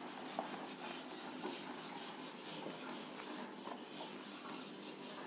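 Faint rubbing strokes of a whiteboard being wiped clean.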